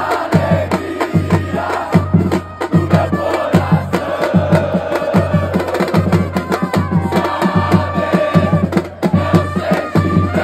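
Chant-like singing over a steady, heavy drum beat, a little over one beat a second.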